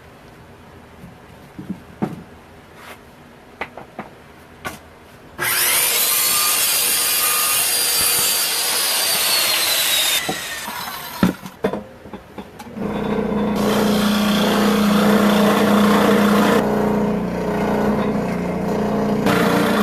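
Handheld Skil circular saw cutting particle board. After a few seconds of handling clicks and knocks, the saw cuts for about five seconds with a high whine that falls in pitch under load. After a short pause with knocks, it runs again with a steady hum for the last several seconds.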